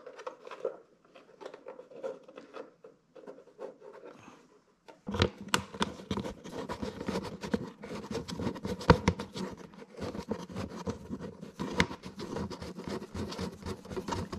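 Hard plastic motorcycle fairing panel being handled and pressed into place: a few light clicks and knocks, then from about five seconds in a dense, close run of scraping, rubbing and clicking of fingers on the plastic.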